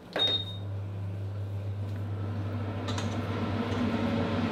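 A kitchen appliance is switched on with a click and a short high beep, then runs with a steady low hum while the empty pan heats. Faint knocks come about two and three seconds in.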